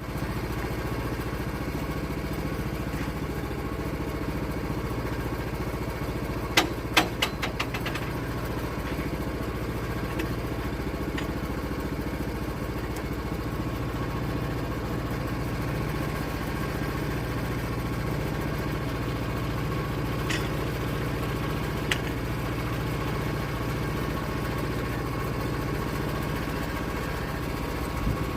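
An engine running steadily at a constant speed, with a short run of sharp metallic knocks about seven seconds in.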